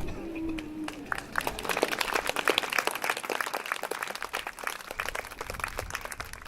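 Audience applauding. A held sung chord dies away in the first second.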